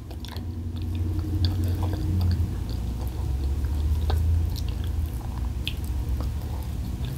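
A person chewing a mouthful of pancake, with soft wet mouth sounds and small scattered clicks.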